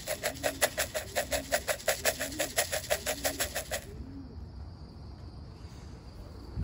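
Pigeons cooing low and repeatedly at the loft, under a rapid, even run of sharp beats, about seven a second, that stops nearly four seconds in.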